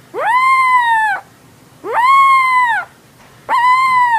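A young puppy howling: three high, drawn-out howls, each about a second long, rising sharply in pitch at the start and sliding down at the end, with short pauses between them.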